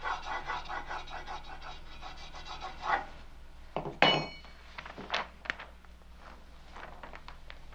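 Hand-held rubbing tool burnishing the back of a paper sheet on an inked stone block to pull a stonecut print: quick, even back-and-forth rubbing strokes, about five a second, for about three seconds. Then a few louder single scrapes and light clicks.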